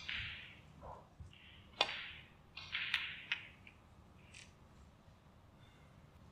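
Snooker balls clicking against each other and the cushions as they run across the table after a shot: three sharp clicks, the last two close together, then quiet.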